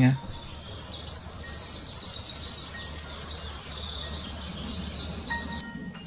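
European robin singing: a high, fast run of varied trills and twittering phrases that stops abruptly near the end.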